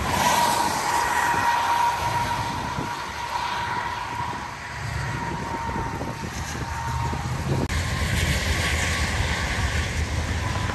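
Hurricane wind and rain, with traffic hissing past on a wet highway. About eight seconds in, strong wind gusts buffet the microphone with a low rumble.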